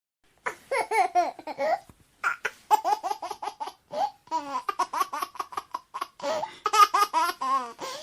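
A baby laughing in quick repeated bursts of high-pitched giggles and squeals, starting about half a second in, with a short pause near the two-second mark.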